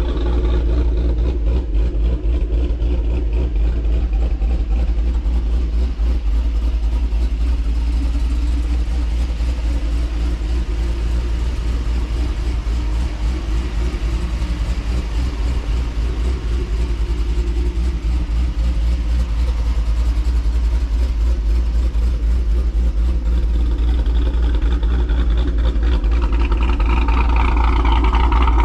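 Cammed V8 engine of a lowered GMC Sierra pickup running with a steady deep rumble, its note rising and brightening in the last few seconds.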